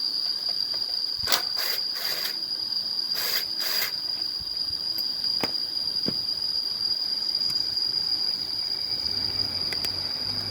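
Steady, high-pitched drone of crickets or similar insects. A few short scraping or rustling noises come in the first four seconds.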